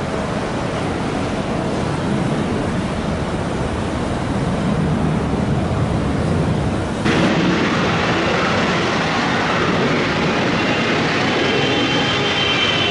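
Boeing 777 jet engines roaring at takeoff power as the airliner departs, the roar slowly building. About seven seconds in the sound cuts abruptly to another jet's roar, with a high steady engine whine near the end.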